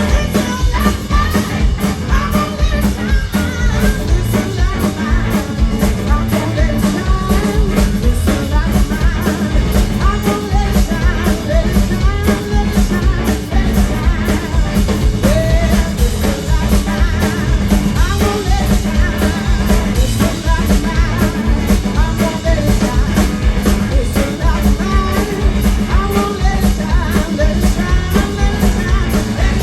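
Live blues band playing loudly, with a steady drum beat under sliding melodic lines.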